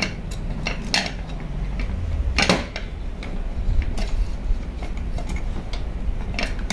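Scattered metal clicks and clinks as a steel handle is fitted to a drill stand's bracket and its bolt is turned with an Allen key, with one louder clack about two and a half seconds in.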